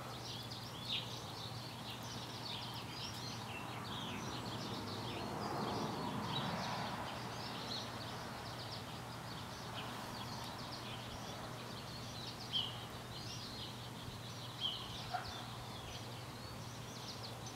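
Faint background ambience: many small birds chirping over a steady low hum, with a broad swell of noise about six seconds in and a few soft clicks later on. The slow pour of thick Plastidip itself makes no clear sound.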